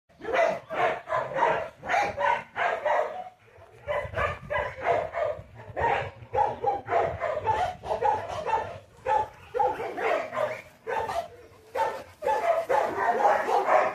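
A dog barking rapidly and repeatedly, about three barks a second, with a few short breaks.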